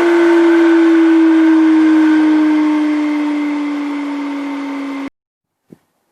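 The beehive box handle machine's 1 hp single-phase electric motor is running with a steady whine that slowly drops in pitch. The whine stops abruptly about five seconds in, and a few faint clicks follow.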